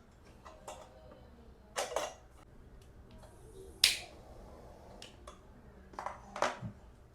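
A few sharp clicks and knocks from objects being handled, the loudest a single sharp click about four seconds in, over a faint steady background.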